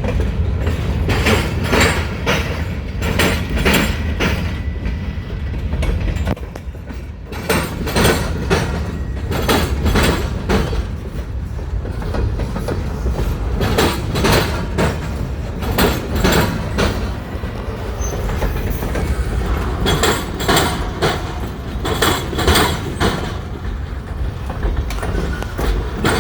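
Freight train cars rolling past at the railroad diamond, with a steady low rumble and groups of sharp wheel clacks every couple of seconds as each set of wheels crosses the rail gaps.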